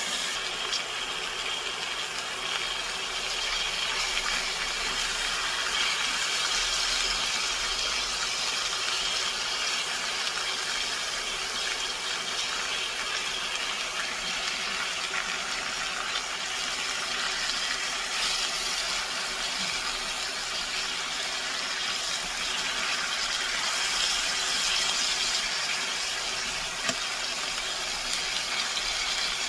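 Thin-sliced pork belly sizzling steadily in a frying pan, with a short clack of tongs against the pan near the end.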